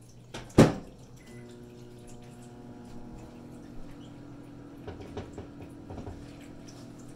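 A sharp knock, then a short electronic beep, then a kitchen appliance starts a steady electrical hum and keeps running, with a few light taps over it.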